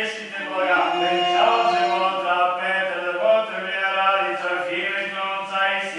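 Unaccompanied Orthodox liturgical chant sung by several voices, with a steady low note held beneath the moving melody.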